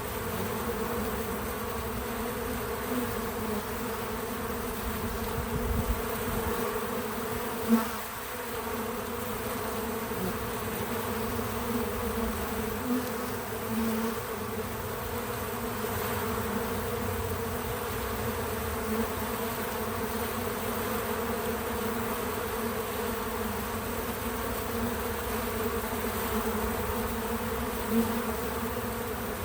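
Many bees buzzing steadily at a feeder, with single bees' higher buzzes coming and going and two brief sharp louder moments, about eight seconds in and near the end.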